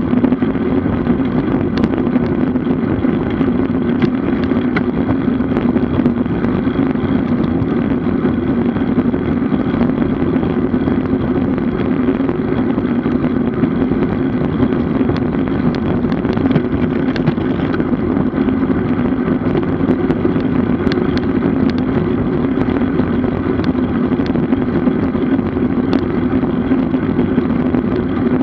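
Steady rushing noise of a road bicycle in motion: wind on the microphone and tyre hum on the road, with a low steady drone and no breaks.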